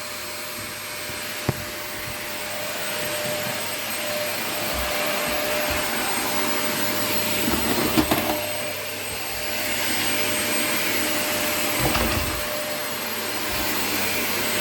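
Vacuum cleaner running steadily, its sound swelling and easing as it works. A few short knocks come through: one near the start, one about halfway, one near the end.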